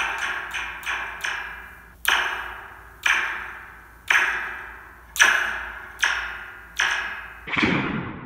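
Stretched metal Slinky struck repeatedly with a pencil, picked up by a contact microphone on the coil. Each strike is a sharp hit followed by a zinging, falling ring that fades over about a second: the Star Wars laser-blaster sound. A few quick hits come at the start, then about one a second, and near the end the shots turn deeper and fuller.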